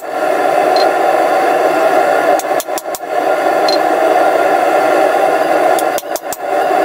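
Forge running with a steady rushing roar, dipping briefly a few times.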